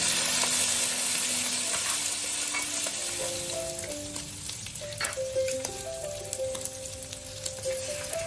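Shrimp and squid sizzling in hot garlic oil in a wok and being stirred with a wooden spatula. The sizzle is strongest at first and eases off, with a sharp tap or scrape of the spatula about halfway through. Soft background music plays throughout.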